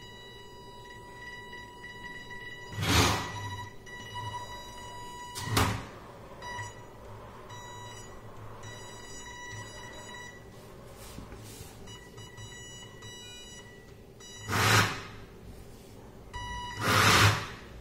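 Arduino-modified RC drift car's small electric motor and gears whirring in four short bursts of about half a second each as it is driven. A thin high whine comes and goes between the bursts.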